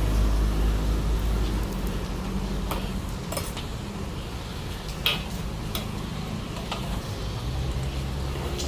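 Scattered sharp clinks and taps of metal cooking utensils at a street-food griddle, about six spread over several seconds, the loudest about five seconds in. A low traffic rumble under them fades in the first two seconds and returns near the end.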